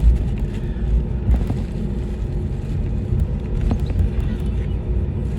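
Cabin noise of an Airbus A321 taxiing: a steady low rumble from the idling engines and the wheels rolling on the taxiway, with a faint steady hum and a few light ticks.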